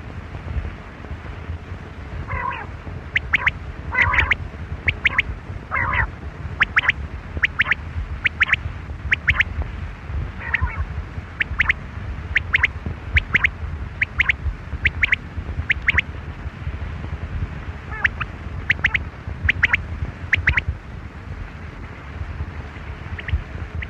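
Quail calling over and over: short, sharp high notes in quick groups of two or three, with a few lower calls now and then, over a steady low rumble.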